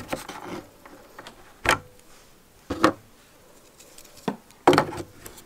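Several sharp clicks and knocks as solar panel cables and their plug connectors are handled and pushed into the PV input ports of an EcoFlow power hub.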